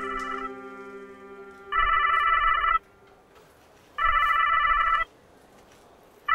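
Telephone ringing, with rings of about a second repeating every couple of seconds; each ring has a fast trill. A held musical chord fades out over the first few seconds.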